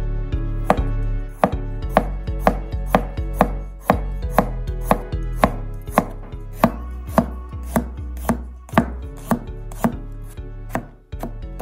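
A chef's knife slicing fresh ginger and then garlic cloves on a plastic cutting board: sharp knocks of the blade on the board, about two a second.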